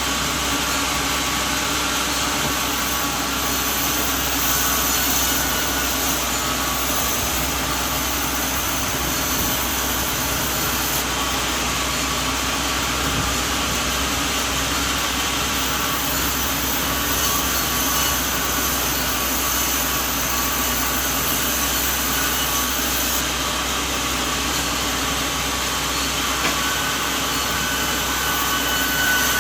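Sawmill machinery running steadily, a constant mechanical hum and whir.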